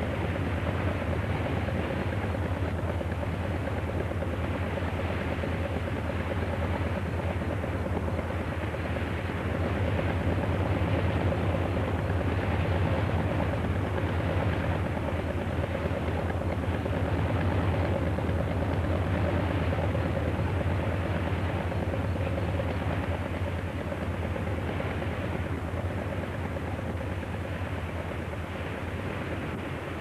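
Steady low engine drone of a fishing boat at sea, with an even hiss over it.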